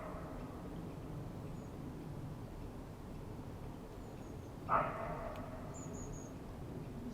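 One short, loud animal call about two-thirds of the way in, over a steady low background rumble, followed shortly by a faint high bird chirp.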